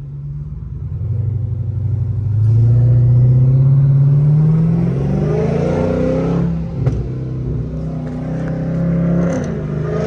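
Dodge Charger SRT Hellcat's supercharged 6.2-litre V8 accelerating, heard from inside the cabin: the engine note climbs in pitch for several seconds, dips about two-thirds of the way through, then climbs again, with the supercharger whine audible. With the exhaust repaired it sounds like a normal car rather than like a motorcycle.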